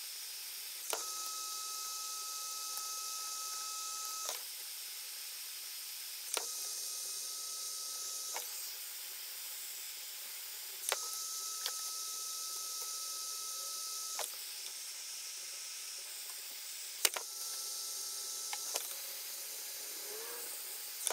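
Heat gun blowing with a steady hiss and a faint whine, softening the old glue so the wood veneer can be peeled off. The sound shifts abruptly every few seconds, with several sharp clicks, the loudest about seventeen seconds in.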